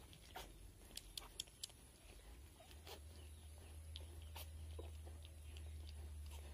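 Faint sounds of a sow and newborn piglets in straw: scattered soft clicks and rustles with a few small squeaks. A low steady hum comes in about two and a half seconds in.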